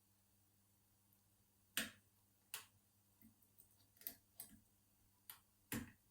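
Small, sharp metal clicks at irregular intervals from a lollipop pick lifting the levers of a Chubb 7-lever mortice lock, held under tension from a bent-nail tension tool. The clicks begin about two seconds in, the first being the loudest.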